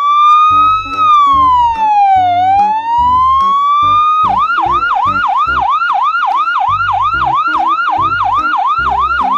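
Electronic ambulance siren: a slow wail rising and falling once, then switching about four seconds in to a fast yelp of about three sweeps a second.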